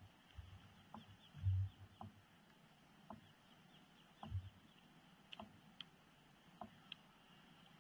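Faint outdoor quiet with soft clicks about once a second, faint high chirping, and two low thumps, the louder about a second and a half in.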